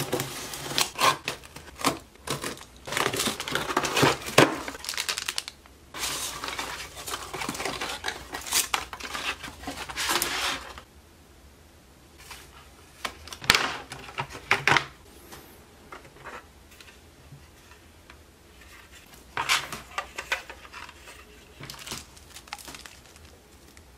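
Unboxing: a small cutter slices through the packing tape of a cardboard mailing box, and the cardboard flaps are torn open with continuous scraping and tearing. Then, about halfway through, it turns quieter, with short bursts of crinkling and clicking as clear plastic clamshell packaging and a plastic bag are handled.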